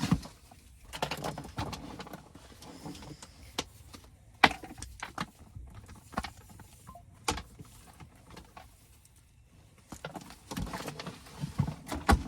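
Handling noise from work on an HVAC install: scattered sharp clicks and knocks, with stretches of rustling, as a wire is routed and parts are handled.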